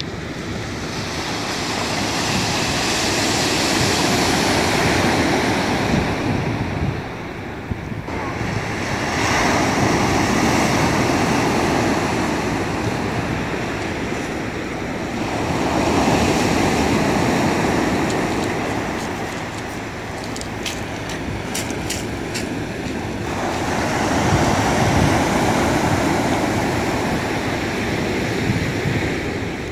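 Small sea waves breaking and washing up a pebble shore, the surf swelling and ebbing about every six seconds, with a few faint clicks about two-thirds of the way through.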